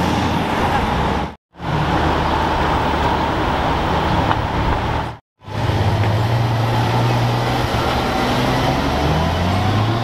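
Street traffic noise, broken by two brief gaps of silence. After the second gap, a Ferrari's engine runs with a steady low note, then revs rising in pitch near the end as the car accelerates away.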